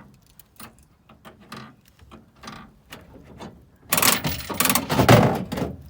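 Vending machine's vend mechanism running: light clicking for a few seconds, then about four seconds in a loud mechanical rattle as the item is delivered. This is a normal vend with nothing sticking.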